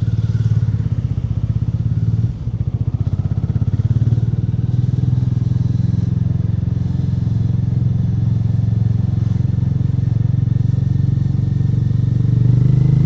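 Hero Mavrick 440's 440 cc single-cylinder engine running through its stock exhaust: a steady, low, pulsing exhaust note, with a brief dip about two seconds in and a slight swell near the end.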